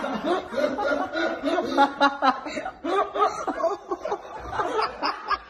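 A person laughing in repeated bouts of chuckling and snickering.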